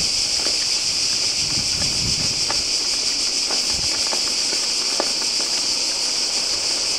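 Cicadas in the pine trees, singing in one steady, continuous high-pitched buzz.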